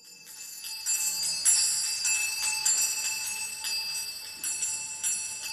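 High, bell-like chimes ringing, with new strikes at uneven moments and the tones overlapping into a shimmer.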